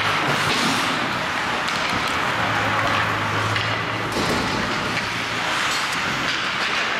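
Ice hockey play: skates scraping across the rink ice with occasional clacks of sticks and puck, over a steady low hum.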